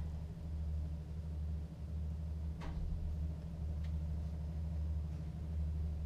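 Steady low hum, with a couple of faint knocks as a cleaver cuts through a cooked chicken on a plastic chopping board.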